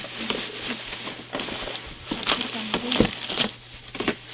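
Indistinct voice, not made out as words, with short clicks and rustling throughout.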